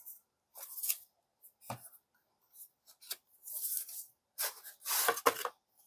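Hands handling a Blu-ray box set, fingers rubbing and sliding over its slipcase in short scratchy bursts. There is a soft knock about two seconds in, and the loudest stretch of rubbing with low knocks comes near the end.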